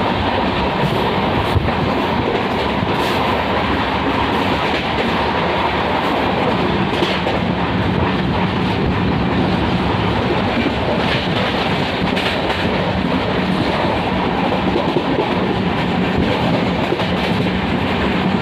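Train wheels running over the rails and the points of a scissors crossover, with a steady rumble and scattered clicks and clatters as the wheels cross the joints.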